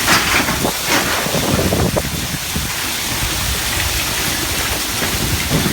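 Storm wind and heavy rain from a mini tornado, a loud, steady rush of noise with a few gusts swelling against the microphone.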